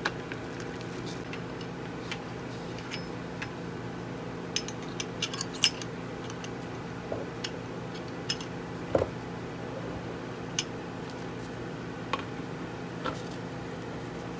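Scattered light clicks and clinks as the random orbital polisher's backing plate and washer are handled, with the sharpest click about halfway through, over a steady background hum.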